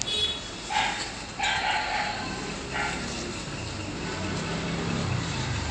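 A dog barking a few times in quick succession during the first three seconds. A low droning hum comes in about halfway through.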